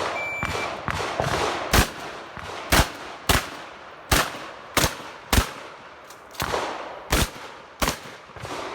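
A short electronic shot-timer beep, then a rapid string of shotgun shots from a Remington 870 pump-action shotgun, about one every half second to a second, each followed by a brief echo.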